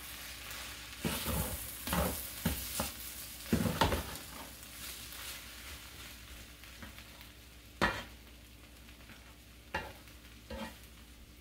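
Fried rice with beans and corn sizzling in a skillet while a spatula stirs and scrapes it, with scattered knocks of the spatula against the pan. The stirring is busiest in the first four seconds, and there is one sharp knock near eight seconds.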